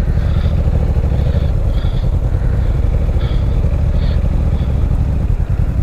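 Honda CB500X parallel-twin engine running steadily at low revs as the motorcycle crawls slowly over a muddy track.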